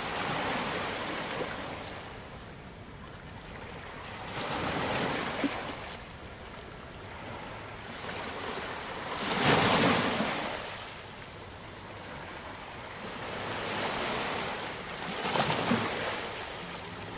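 Ocean waves washing onto a sandy beach: a steady hiss of surf that swells and falls back about every four to five seconds, the biggest surge about ten seconds in.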